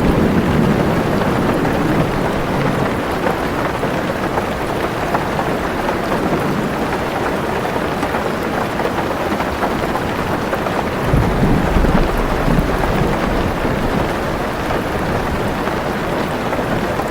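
Heavy rain falling steadily on a car roof, with low rolls of thunder at the start and again about two-thirds of the way through.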